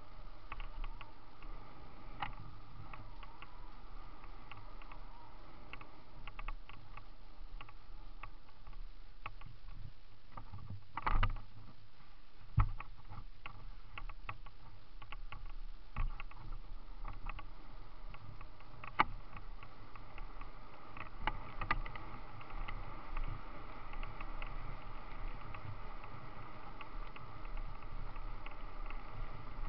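Mountain bike rolling fast over gravel, grass and dirt trail: steady tyre and rolling noise with frequent chain and frame rattles, and a few louder knocks over bumps, the biggest about eleven seconds in.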